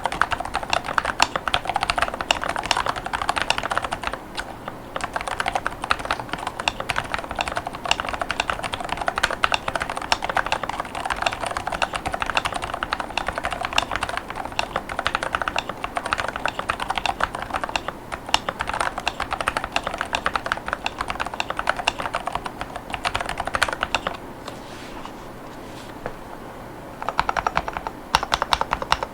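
Fast, continuous typing on a Glorious GMMK3 HE Hall-effect mechanical keyboard with Glorious Panda HE Tactile 45gf switches and PBT OEM-profile keycaps, a dense run of key clacks. It breaks off briefly near the end, then resumes.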